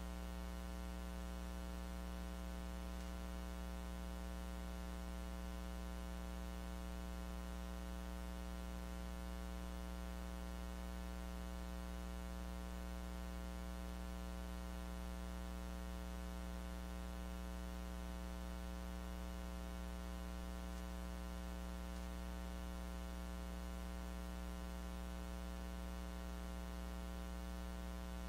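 Steady electrical mains hum with a buzz of many overtones and a layer of static hiss, unchanging throughout: the noise of an audio line that recorded no actual sound.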